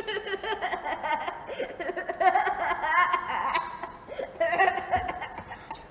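A person laughing in short, broken-up fits, with some voice mixed in.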